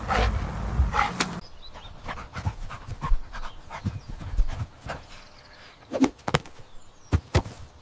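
AI-generated soundtrack of a dog panting, with short knocks and clicks scattered through it. A steady low rumble cuts off about a second and a half in, and the sharpest knocks come about six seconds in and twice near the end.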